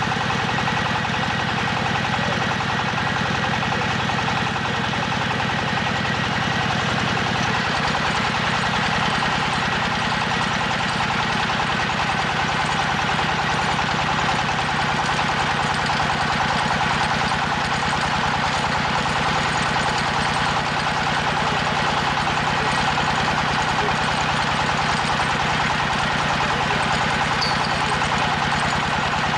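Hydraulic drilling rig running steadily under load as it drills, its engine and hydraulic drive making a continuous, loud, fast-pulsing mechanical sound.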